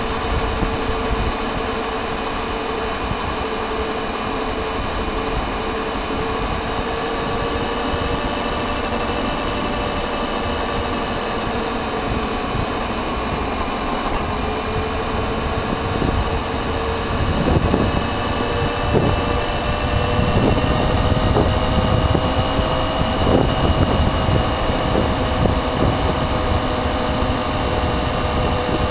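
A radio-controlled car's motor and drivetrain running, heard from a camera mounted on the car, with a few steady tones that drift slightly over the rumble of its tyres on a rough path. From a little past halfway, jolts and knocks come in as it runs over bumps.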